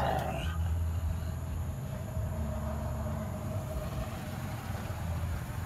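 Dogs growling, a low steady rumble that goes on through a tense face-off.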